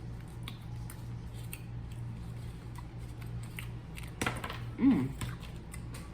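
A person chewing Fruitella chewy candy, with small wet mouth clicks over a steady low hum. About four to five seconds in comes a brief louder sound with a short wavering tone.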